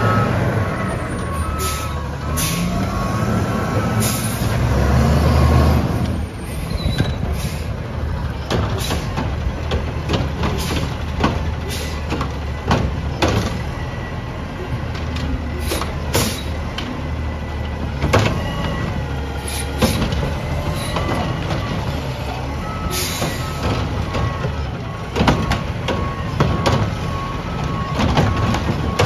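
Front-loader garbage truck's diesel engine running hard for the first few seconds as the hydraulic arms lift over the cab, then working on at a lower level as its cart-grabbing arm picks up and tips wheeled bins. Sharp metallic clanks and knocks come throughout. A repeating beep sounds at the start and again near the end.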